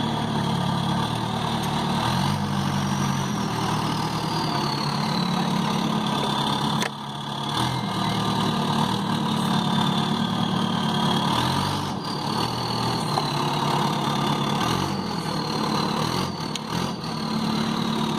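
Backhoe's diesel engine running as the machine manoeuvres, its revs rising and falling several times, with a high whine that rises and falls along with it.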